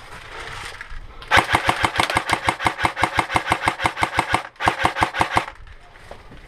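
Airsoft rifle firing on full auto: a rapid, even rattle of shots, about a dozen a second, in one burst of about three seconds and then a second, shorter burst of about one second.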